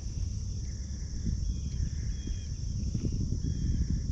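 Steady high-pitched insect chorus, over an uneven low rumble with soft knocks. A few short high chirps break through about every second or so.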